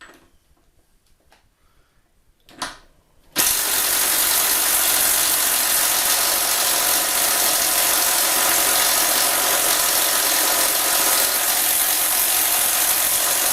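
DeWalt cordless impact wrench hammering steadily for about ten seconds on a tight nut without breaking it loose, after a brief short burst a few seconds earlier. It lacks the power to undo the nut. The hammering cuts off suddenly.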